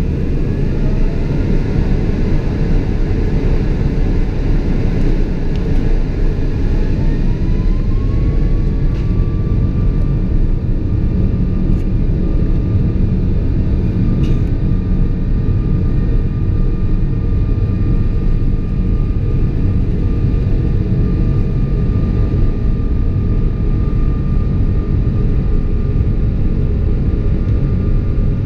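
Boeing 777-200ER cabin noise in flight: a loud, steady engine and airflow rumble, with a whine that rises over the first ten seconds or so and then holds steady.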